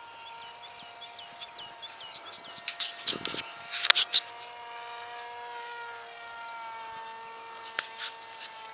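RC airplane motor whining steadily in flight, its pitch drifting slowly. A cluster of sharp thumps comes about three to four seconds in, and another near the end.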